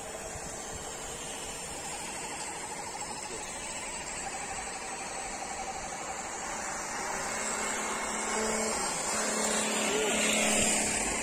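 Electric motors and gearboxes of scale RC trucks whining as the trucks drive off one after another, growing louder about seven seconds in as one passes close, loudest near the end.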